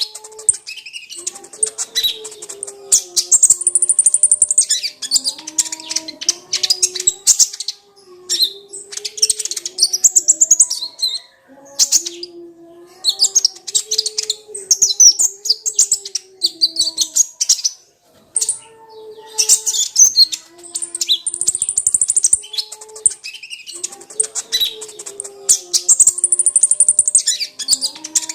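Kolibri ninja (konin) sunbird singing a fast, high-pitched chattering song in long rapid phrases, broken by brief pauses twice. A fainter low wavering tone runs underneath.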